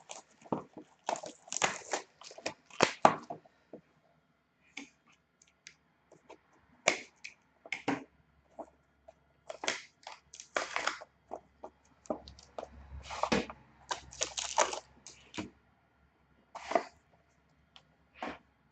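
Hands tearing open and handling the packaging of a sealed box of trading cards: irregular cardboard and plastic-wrap crackles, rips and clicks, with brief pauses between handlings.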